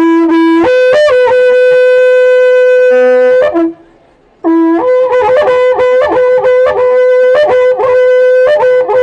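Cacho (waqra pukuy), an Andean horn trumpet made of cattle horns, blown in two loud phrases. The first phrase is a few short repeated low notes, then a jump up to a long held higher note. After a brief pause about four seconds in, a second phrase of quick repeated notes settles on that higher note.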